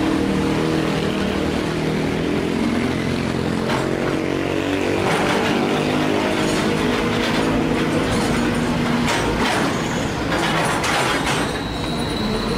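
Sumitomo SH210 hydraulic excavator's diesel engine running under load as the machine swings and works its bucket, the pitch shifting with the load. In the second half come several short knocks and scrapes of the steel bucket digging into rocky soil, and a thin high steady tone starts near the end.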